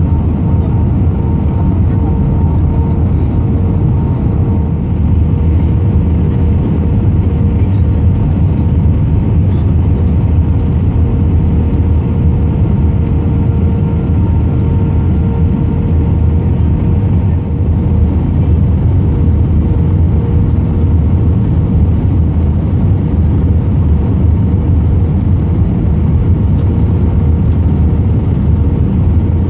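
Airbus A320 cabin noise on final approach, heard at a window seat over the wing: a steady, loud, low drone of engines and airflow, with a constant faint whine above it.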